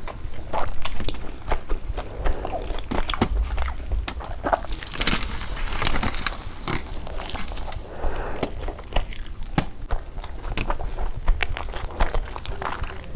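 Close-up chewing and biting into a frankie, a stuffed Indian flatbread roll, with many short wet mouth clicks and smacks.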